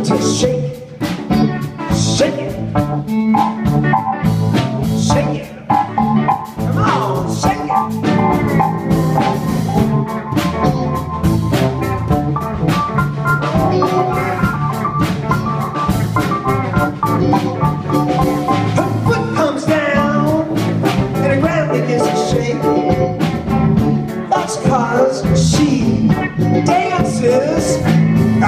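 Live band playing an instrumental passage: drum kit, electric bass, electric guitar, pedal steel guitar and organ together at a steady groove.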